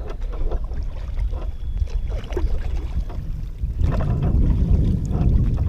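Wind buffeting the microphone: a heavy, uneven low rumble that grows stronger about four seconds in, with a few faint ticks over it.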